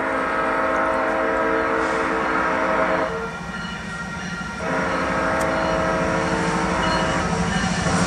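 Air horn of an approaching freight train's lead diesel locomotive, a Union Pacific GE ET44AC, sounding two long blasts of about three seconds each with a short break between. Under the horn, the rumble of the diesel locomotives and train grows louder as the train nears.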